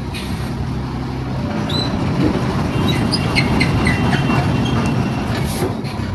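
Diesel truck engine running at low revs while the truck creeps into position, getting louder over the first couple of seconds, with short high squeaks and metallic clinks from about two seconds in.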